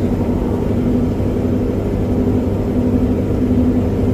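Steady low engine and road rumble of a vehicle driving, with an even hum.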